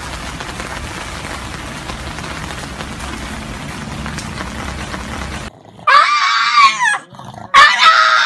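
Steady hiss of rain falling on pavement, which cuts off about two-thirds of the way through. Then a pug gives two drawn-out, high whining howls, each lasting about a second and dipping and rising in pitch.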